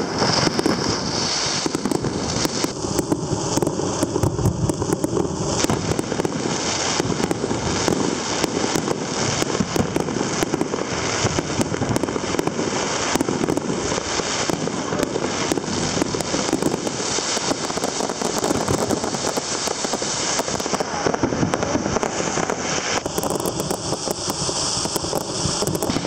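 An aerial fireworks display going off: dense, continuous crackling and popping of bursting shells.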